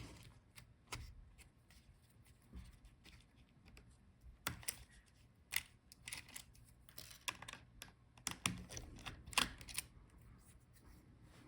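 Faint, irregular light clicks and taps of a small screwdriver working the tiny screws that hold a laptop's motherboard and I/O board, with small metal screws and tools being handled; the clicks come more thickly in the middle and later part.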